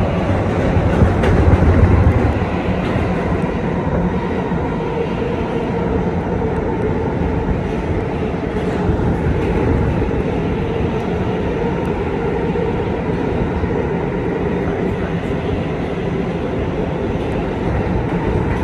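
2023 Kawasaki R211A subway car running at speed on an express run, a steady noise of wheels on rail and traction motors, with a brief louder low rumble about a second in.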